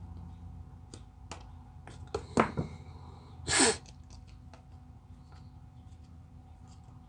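A person sneezing once: a short voiced intake about two seconds in, then a loud noisy burst a little over a second later. Scattered light clicks of handling come in between.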